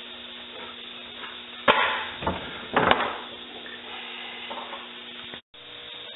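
Two sharp knocks about a second apart over a steady workshop hum; the sound cuts out completely for a moment near the end.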